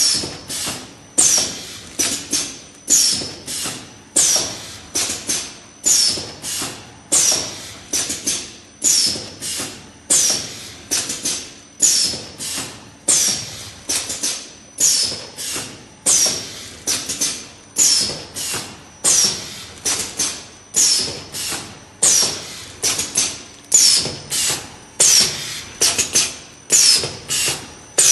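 Ten-lane liquid filling machine running in a steady cycle about once a second, each cycle a cluster of sharp clacks with short hisses.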